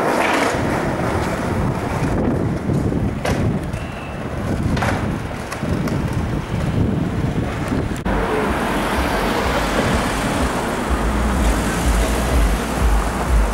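Outdoor street noise with wind buffeting the microphone. The buffeting grows heavier about halfway through, with a deep rumble in the last few seconds.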